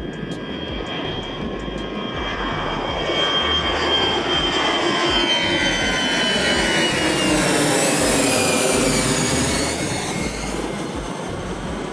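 Airbus A320's twin CFM56-5B turbofan engines at takeoff thrust as the airliner passes low overhead. The jet noise builds to its loudest about two-thirds of the way in and then begins to ease, with a high fan whine sliding down in pitch as the aircraft goes by.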